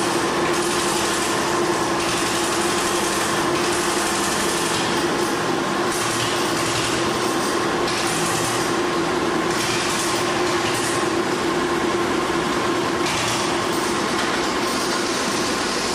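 Engine of a Nimbus Junior 2 motor dumper running steadily with an even, constant hum.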